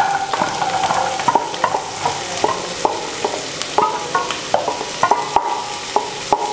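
Chopped onions frying in hot oil with minced ginger and garlic. The sizzle jumps up as the onions hit the oil and then runs on with frequent sharp crackles.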